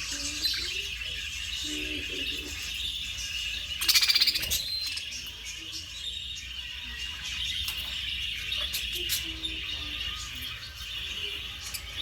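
Pet budgerigars chattering and warbling, with one louder, harsher burst about four seconds in.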